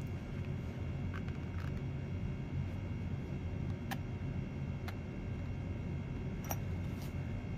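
Nylon zippered knife pouch being slowly unzipped: a few faint, scattered ticks from the zipper teeth and metal pull, over a steady low background hum.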